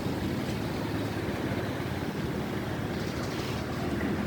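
A steady low engine drone, with even humming tones, under a continuous rushing haze of wind.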